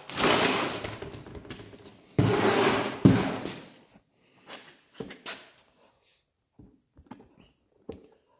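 Handling noise as the camera is picked up and carried: clothing brushing and rubbing across the microphone in two loud bursts over the first three seconds, the second ending in a sharp knock. After that come scattered faint clicks and taps.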